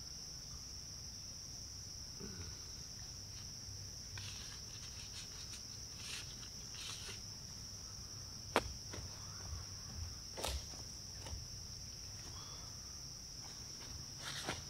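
Steady high-pitched insect drone, crickets or similar woodland insects, with a few scattered soft knocks and rustles; one sharper click comes about eight and a half seconds in.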